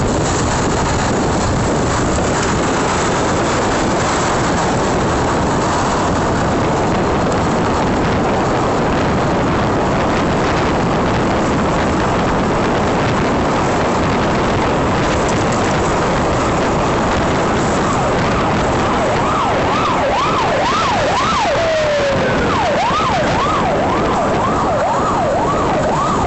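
Steady rush of wind on the microphone and traffic noise while riding. About two-thirds of the way through, an emergency vehicle siren starts up in a fast rising-and-falling yelp, breaking off briefly once and then going on.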